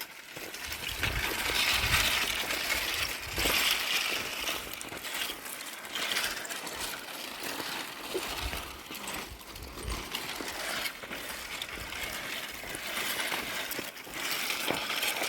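Irregular rustling and crunching of dry brush and twigs, with scattered clicks and low thuds.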